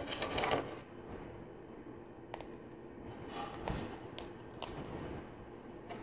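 Plastic LEGO Technic parts being handled and snapped together: a rustle of pieces at the start, then several sharp clicks as friction pins are pressed into a lift arm.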